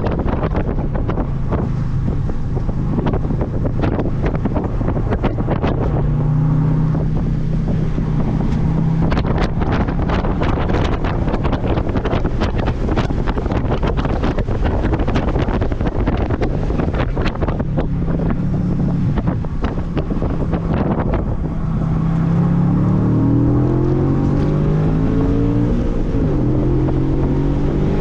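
Loud wind buffeting on the microphone over the Audi B7 RS4's 4.2-litre V8 at speed. The engine note climbs several times near the end as the revs rise.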